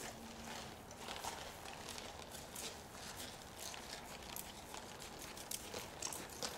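Horse's hooves striking soft arena footing at a trot: a run of hoofbeats.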